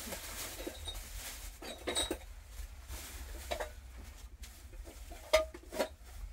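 Dishes and utensils being handled: a handful of separate knocks and clinks, one about two seconds in with a brief metallic ring.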